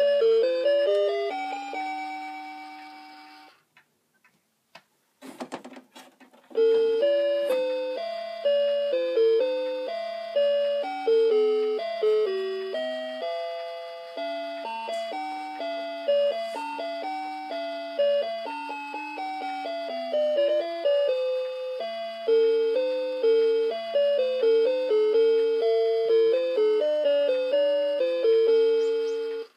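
SEIKO Puppet RE524N karakuri clock playing its electronic-tone melody, each note dying away quickly. The tune stops about three and a half seconds in, a few sharp clicks follow, and a second tune starts a couple of seconds later and plays on until it cuts off abruptly at the very end.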